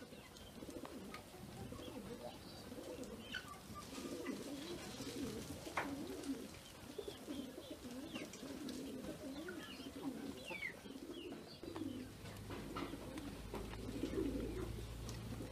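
Pigeons cooing over and over in a low, rolling, wavering coo, with a few short high chirps from small birds.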